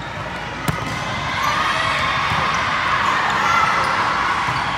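A volleyball struck hard by the server's hand, a single sharp slap less than a second in. It is followed by a growing din of players' and spectators' voices in the gym.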